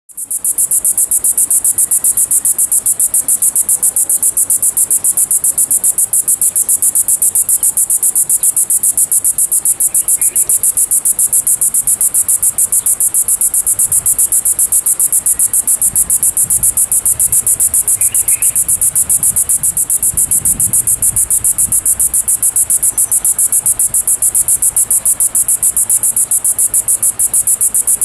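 Cicada singing: a loud, steady, high-pitched buzz made of rapid, evenly repeating pulses.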